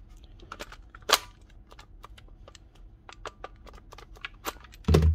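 Clicks, taps and light knocks of plastic cordless drill parts being handled on a workbench, with a sharper click about a second in and a heavier knock near the end.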